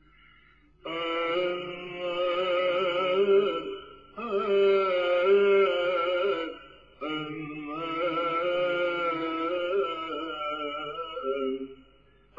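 Religious chant: voices singing long, held, slowly wavering notes in three phrases, with two short breaks between them.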